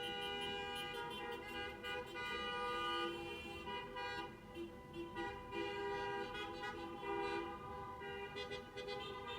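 Several car horns honking at once and in turns, an unbroken, overlapping din of different pitches from a slow parade of cars.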